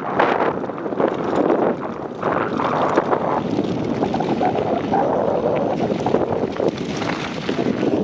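Mountain bike rolling fast over loose dirt and gravel: tyres crunching and the bike clattering over the bumps, with wind buffeting the microphone.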